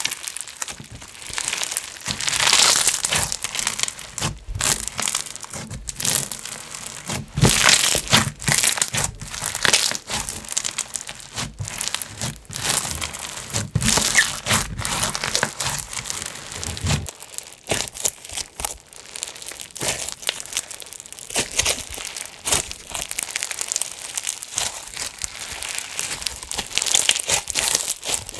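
Bingsu bead slime being squeezed and worked by hand, giving dense, irregular crackles and crunches as the beads pop.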